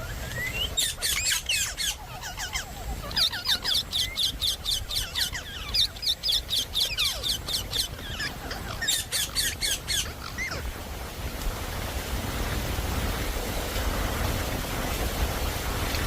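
Indian ringneck parrot (rose-ringed parakeet) chattering in three runs of rapid, high chirps, about five a second, over the first ten seconds; after that only a steady hiss remains.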